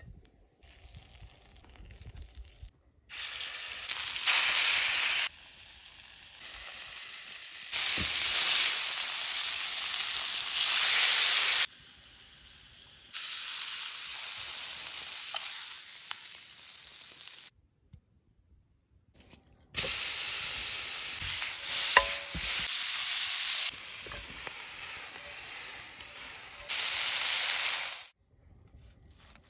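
Butter and steaks sizzling in a cast iron skillet over a rocket log stove. The sizzle comes in several stretches, louder and quieter, breaking off briefly a few times, with a few clicks in between.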